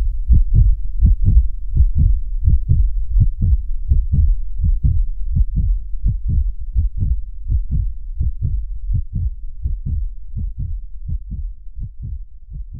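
Heartbeat sound: a fast, even run of low thumps, about three to four a second, fading gradually toward the end.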